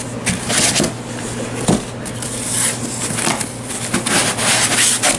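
Styrofoam packing blocks and a cardboard box rustling and scraping as they are handled and pulled away from a subwoofer, with one sharper knock about a second and a half in.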